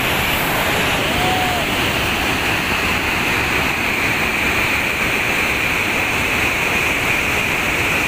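A large waterfall of white water rushing and pouring down in a loud, unbroken roar. A short faint chirp comes about a second in.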